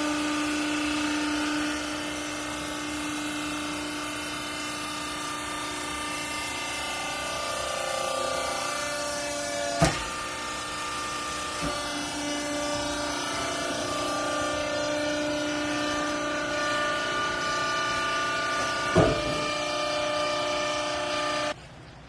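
Hydraulic clothing baler running: its pump and motor give a steady whine whose pitch shifts as the load changes, with two sharp knocks, about ten and nineteen seconds in. The machine sound cuts off suddenly near the end.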